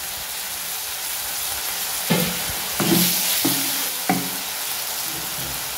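Chopped onion, tomato and curry leaves sizzling in oil in a clay pot, a steady hiss. From about two seconds in, a wooden spatula scrapes against the pot in four quick stirring strokes.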